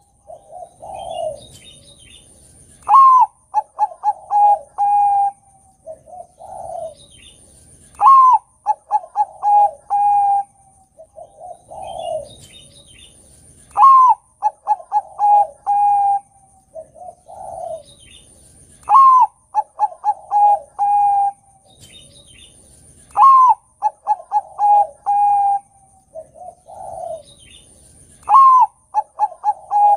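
Zebra dove (perkutut) of the Bangkok-bred type cooing its song over and over, about every five seconds. Each phrase opens with a rising note, runs into a quick series of short clipped notes and ends on a held note, with a softer, lower coo between phrases.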